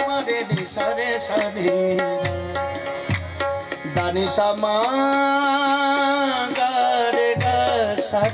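Live naat in qawwali style: male voices singing over harmoniums and low hand-drum strokes. One sung note is held for about a second and a half in the middle.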